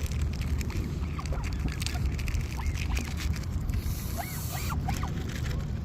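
Geese and gulls giving a few faint, short calls, over a steady low rumble and scattered clicks.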